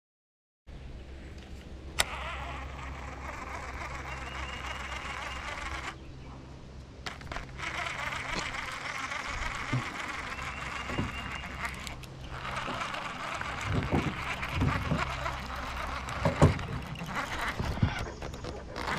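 Bow-mounted electric trolling motor running with a steady low hum, with a hiss above it. A sharp click about two seconds in and a few knocks near the end.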